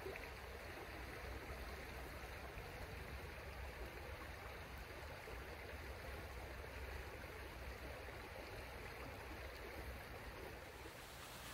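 Steady, low rush of a small creek flowing.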